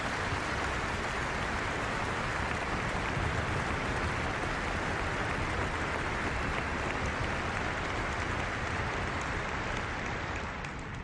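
Audience applauding, steady and dense, beginning to die away near the end as single claps start to stand out.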